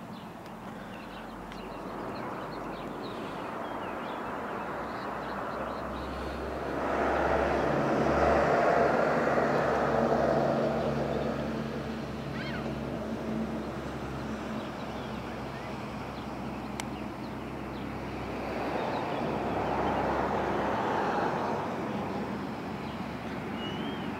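Street traffic: road vehicles passing along the street, their tyre and engine noise swelling up and fading away, once about seven seconds in and again about nineteen seconds in, over a steady low hum.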